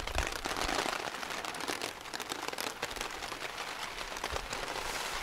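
Hard rain falling on a tarp overhead, a dense, steady patter of drops.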